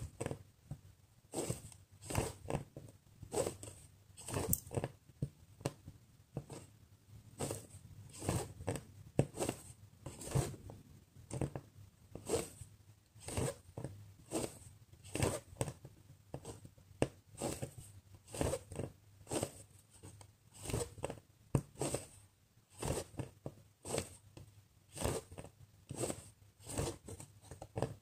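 Cross-stitching by hand: the needle piercing the cross-stitch fabric and the embroidery thread being drawn through, a short scratchy rasp with each pull, repeating about once or twice a second.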